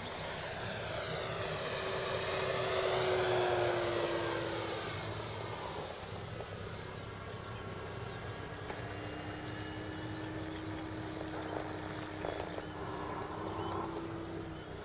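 Electric RC scale model F4U Corsair with a three-blade propeller passing low overhead: a steady propeller hum that swells, peaks about three and a half seconds in and drops slightly in pitch as it goes by, then carries on more faintly as the model climbs away.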